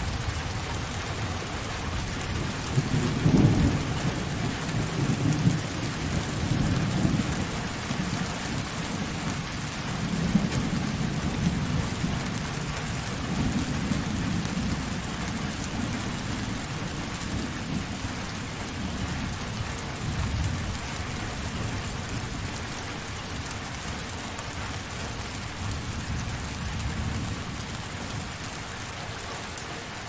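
Thunderstorm: steady rain hissing, with rolling thunder rumbling in several low swells. The loudest rumble comes about three seconds in, and the later rumbles grow fainter toward the end.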